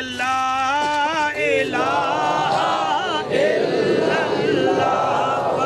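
Men's voices chanting together: one voice holds a long chanted note, then about two seconds in a crowd of men joins in, chanting in unison.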